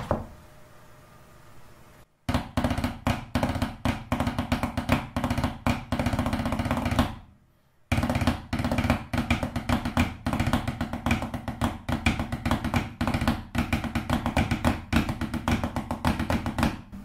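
Wooden drumsticks played on a book used as a practice pad: fast, even runs of strokes like rolls, starting about two seconds in, with a brief break in the middle. The book gives the sticks a firm rebound, neither too hard nor too soft, and the player judges it the best of the surfaces he tried.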